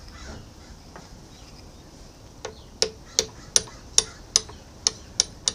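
Evenly spaced metallic clicks, about two and a half a second, beginning a little over two seconds in: a ratchet wrench being worked on the carriage-lock bolt.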